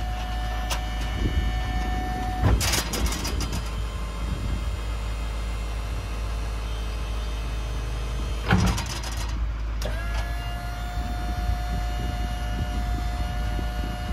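Tow truck's hydraulic wheel lift being raised: a steady whine from the hydraulic drive cuts out with a clatter about two and a half seconds in. Another clank of the steel lift arms comes near eight and a half seconds, and the whine starts again about ten seconds in. The 6.6-litre Duramax diesel idles low underneath.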